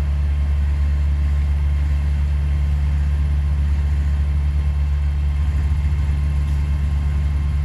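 Heavy diesel engine of an earthmoving machine running steadily with a deep, even drone.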